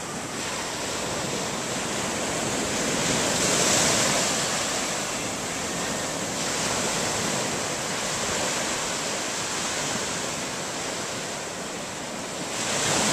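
Ocean surf: small waves breaking and washing up the shore in a steady roar that swells louder about four seconds in and again near the end.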